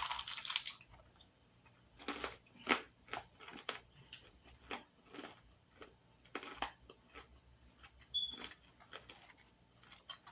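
A person chewing food close to a phone microphone: irregular wet, clicky mouth sounds in short bursts, with a louder burst right at the start.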